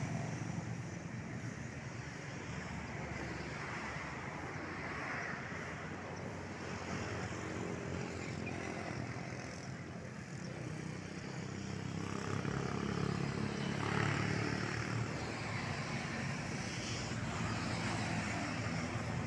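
Light road traffic: motorcycle and car engines going by, growing louder about two thirds of the way through as a vehicle passes close.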